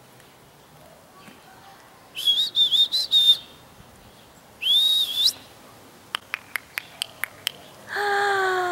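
A person whistling to call a dog: a warbling high whistle, then a single whistle that rises at its end, followed by a quick run of about eight tongue clicks and, near the end, a long excited call sliding down in pitch.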